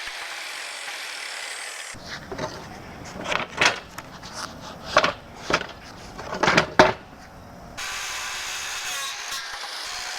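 Pieces of wooden 4x4 being handled, with a string of sharp wooden knocks and clunks through the middle, the loudest just before the end of the string. A steady hiss-like noise runs before and after the knocks.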